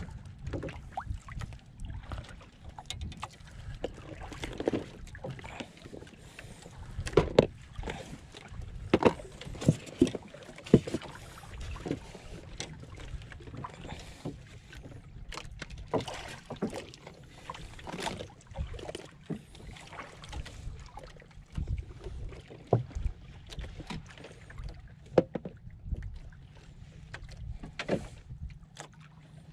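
Water lapping and sloshing against the hull of a small outrigger boat under a low wind rumble, with scattered sharp knocks and clicks from fishing gear being handled in the boat, the loudest ones about seven to eleven seconds in.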